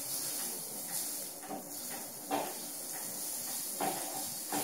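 Pancake batter sizzling with a steady hiss as it is poured into the hot cast iron pancake pan's depressions, the pan near its ideal frying temperature. A few light knocks sound as the cup and pan are handled.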